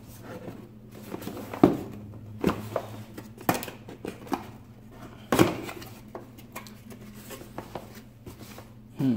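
Cardboard packaging being handled: a box slid out of its sleeve and opened, with rustling scrapes and several sharp knocks of cardboard. The loudest knocks come about a second and a half in and about five seconds in. A faint steady low hum runs underneath.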